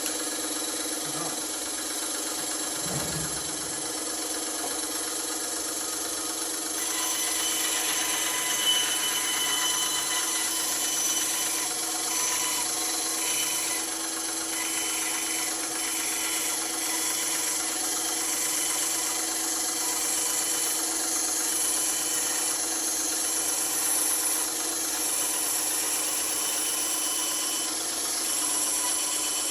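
Bandsaw running steadily, its blade cutting through wood from about seven seconds in.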